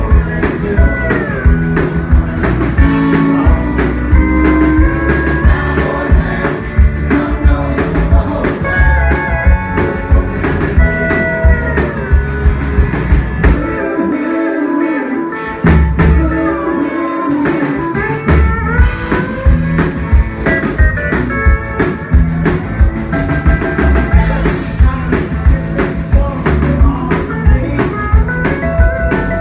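Live country band playing a song loudly, with a steady drum beat and bent electric-guitar notes. About halfway through, the bass and drums drop out for a moment, then come back in.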